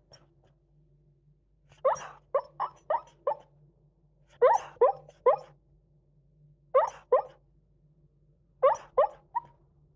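A beagle sleep-barking during a nap: short yipping woofs and whimpers in quick runs of two to five, four runs in all.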